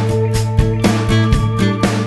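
Background music with a steady beat, about two strokes a second over held tones.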